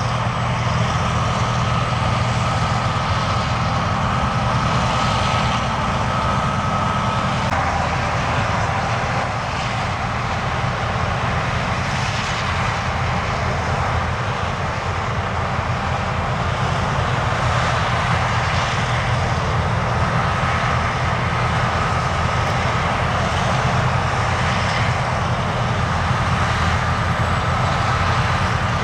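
John Deere combine harvester working in wheat: a steady diesel engine drone under machine noise, with a high whine that fades about seven seconds in and returns near the end.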